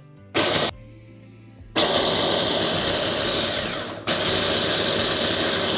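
Small electric food chopper running on whole flax seeds in pulses: one short burst, then two longer runs of about two seconds each with a brief gap between. This chopper does not manage to grind the seeds into powder.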